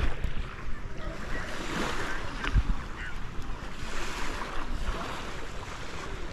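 Waves washing ashore in a steady rush, with wind buffeting the microphone in low thuds.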